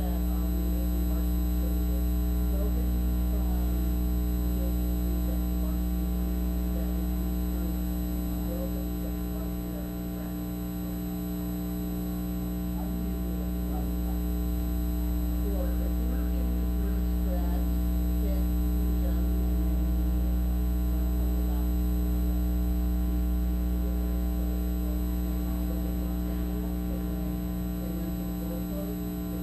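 Loud, steady electrical mains hum with a stack of evenly spaced overtones on the audio track, dipping briefly about ten seconds in. Faint voices sound underneath it.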